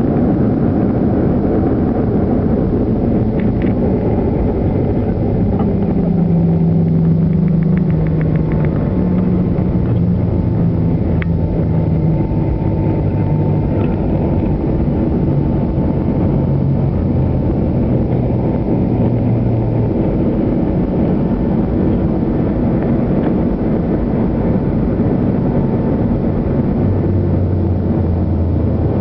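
Cabin noise of a Boeing 737-800 on its landing roll: a loud, steady rumble from the engines and the rolling wheels. Low engine tones step down in pitch over the first twenty seconds or so as the aircraft slows.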